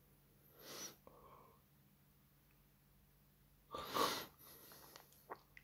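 Two short, noisy breath sounds from a person close to the microphone, the second one louder, followed by a few faint clicks near the end.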